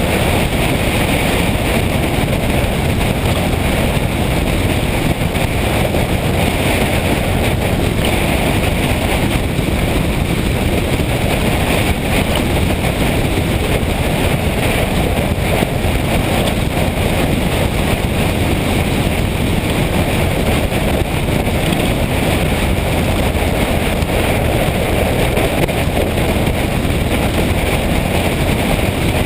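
Steady rush of wind and road noise on a moving motorcycle, the wind buffeting the microphone.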